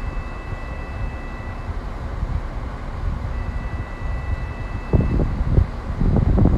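Wind buffeting a phone microphone over a steady low rumble, with gusts about five and six seconds in. Through it a faint two-note beep sounds for under two seconds at a time, about every three seconds.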